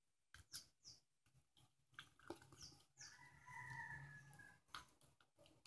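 Near silence, with a few soft clicks of a plastic container being handled. A faint, distant animal call about three seconds in lasts a second and a half.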